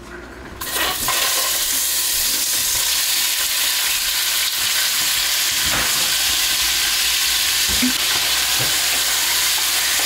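Seafood sizzling in hot oil in a frying pan, the hiss starting abruptly just under a second in as it goes into the pan, then running steadily. A few faint knocks sound over it.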